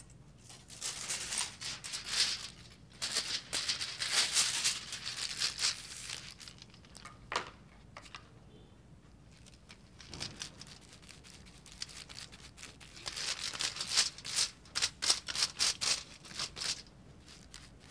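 Aluminium hair foils crinkling and rustling as they are handled and folded around dyed strands of hair. The sound comes in two spells of quick, crackly rustles, each a few seconds long, with a single tap between them.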